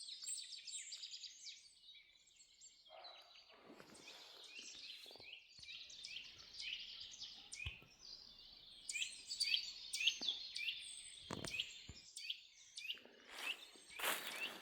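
Woodland birds chirping and singing: many short, quick, repeated high notes, with a few soft knocks.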